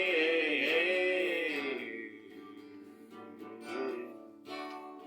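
Acoustic guitar strumming chords under a male voice holding the last sung note of a line, wavering in pitch. The voice stops about two seconds in and the guitar carries on alone, softer.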